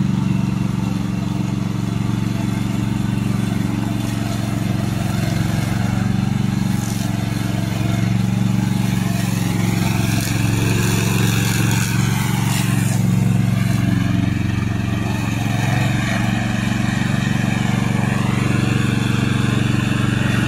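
Remote-control lawn mower's Loncin petrol engine running steadily. A higher whine rises and falls in pitch twice, about 9 to 13 seconds in and again about 14 to 18 seconds in.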